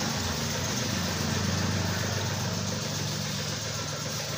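A steady, low engine hum with an even hiss over it, like an engine running at idle.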